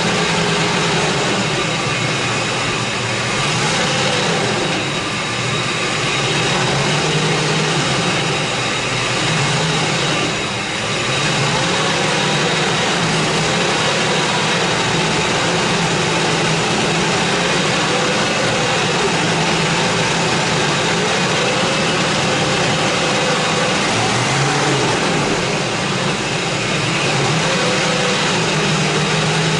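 2004 Ford F-150 engine running steadily with the throttle held slightly above idle, its pitch wavering a little.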